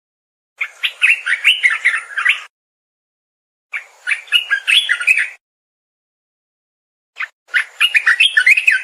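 Olive-winged bulbul (merbah belukar) singing: three short bubbly phrases of quick, warbled whistled notes, each under two seconds, with silent pauses between them.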